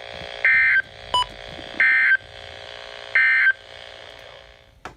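Emergency Alert System end-of-message data tones: three short bursts of two-tone digital warble (the SAME "NNNN" end-of-message code), evenly spaced a little over a second apart, over a steady radio background. They signal the end of the severe thunderstorm warning.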